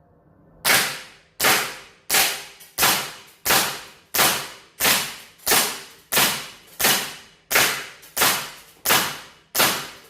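Aimtop SVD Dragunov gas-blowback airsoft rifle firing semi-automatic, fourteen sharp shots at a steady pace of about three every two seconds. Each shot has a short fading tail.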